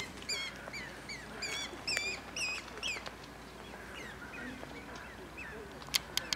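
A flock of birds calling: many short, bright, repeated calls, thick at first and thinning out after about three seconds. A couple of sharp clicks come near the end.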